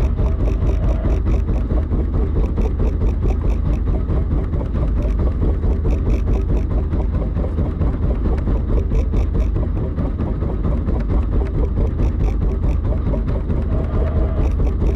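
Fishing boat's engine running steadily: a heavy low drone with a fast, regular ticking of about four ticks a second that comes and goes.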